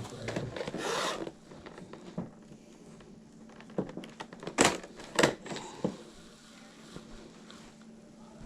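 Objects being handled and rummaged through: a rubbing scrape about a second in, then a few sharp knocks and clicks near the middle.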